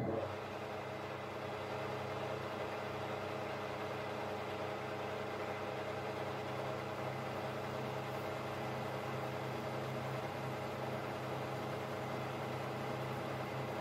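Metal lathe switched on and running steadily, its motor and spinning three-jaw chuck giving a steady machine hum with a sharp rise as it starts.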